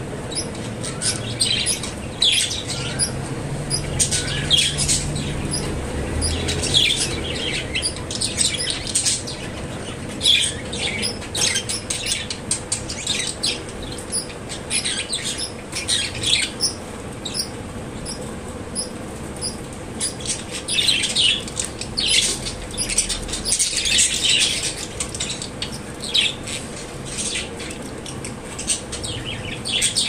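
Budgerigars chirping and chattering: quick, irregular runs of short, high calls that come and go without a break.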